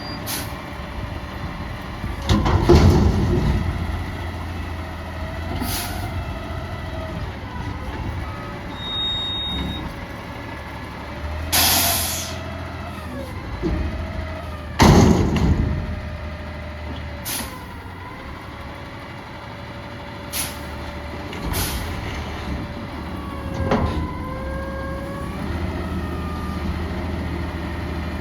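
Peterbilt 320 front-loader garbage truck with a McNeilus Atlantic body at work: the diesel engine runs steadily and its pitch rises and falls as it drives the hydraulic lift arms. Loud metallic bangs come about two and a half seconds in and again about fifteen seconds in, with a short air hiss in between.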